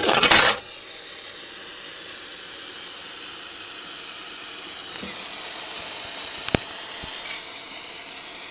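A short loud rustle, then a steady hiss with a couple of light clicks.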